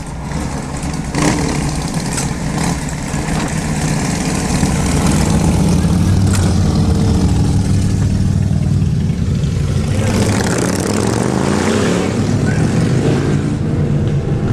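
A group of motorcycles running and pulling away, the engine sound building over the first few seconds. Near the end an engine revs up, its pitch rising.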